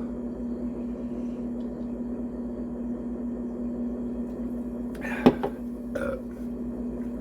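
Steady electrical hum with a low throb underneath. About five seconds in there is a single sharp click, with a few faint short sounds just after it.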